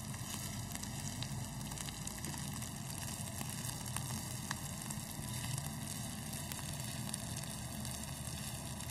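Rice and vermicelli frying in oil in a nonstick pan while being stirred with a slotted spatula: a steady sizzle with a few faint ticks.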